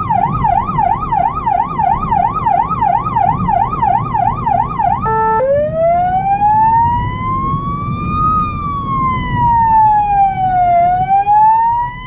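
Electronic emergency-vehicle siren on a blood-transport car, which the driver thinks has something wrong with it. It runs a fast yelp of about three sweeps a second, switches about five seconds in after a brief steady tone, and then gives a slow wail that rises, falls and starts rising again. Road noise sits beneath it.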